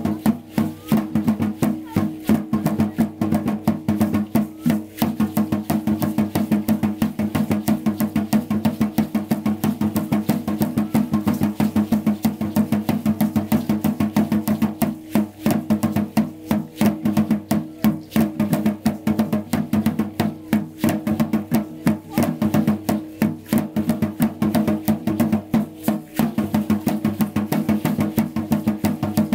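Fast, steady drumming for a dance, the beats coming evenly over a steady low hum.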